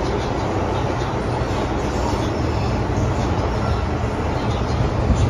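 Cabin noise of an MTR Modernised Train (Metro-Cammell M-Train) running through a tunnel: a steady, loud, deep rumble.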